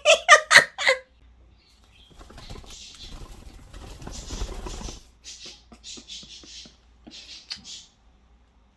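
Pet bird's wings flapping and rustling on and off, in several short bursts.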